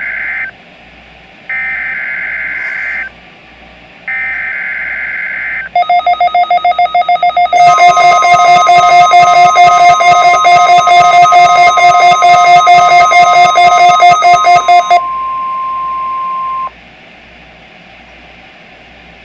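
NOAA Weather Radio weekly test: three bursts of warbling SAME digital header data, then a weather radio receiver's alarm beeping rapidly over the steady 1050 Hz warning alarm tone. The beeping stops, and the alarm tone carries on alone briefly before cutting off, leaving radio hiss.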